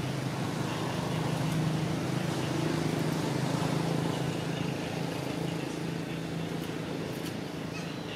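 Steady low motor hum, growing a little louder over the first few seconds and then slowly easing off.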